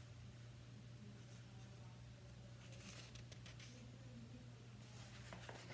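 Near silence: a steady low room hum, with faint paper rustles from a picture book held up in the hands, once about three seconds in and again near the end.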